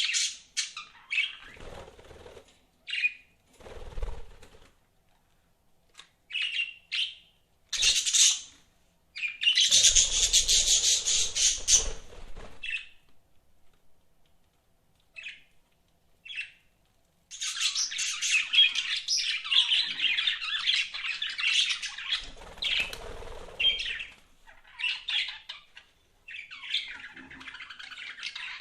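Pet budgerigars chirping and chattering: short separate calls at first, then a long run of continuous warbling chatter from a little past the middle, with a few soft low thumps mixed in.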